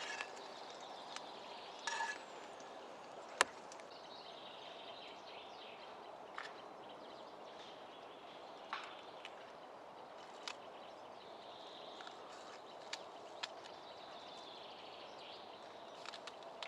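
Campfire crackling: a low steady hiss with single sharp pops every second or few, the loudest about three and a half seconds in.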